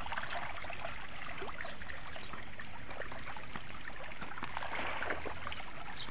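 Water splashing and lapping as a crowd of milkfish (bangus) churns at the surface of a pond: a steady patter of small splashes.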